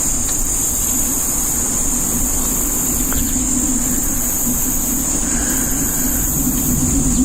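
Steady, unbroken high-pitched chorus of insects such as crickets, over a continuous low rumble.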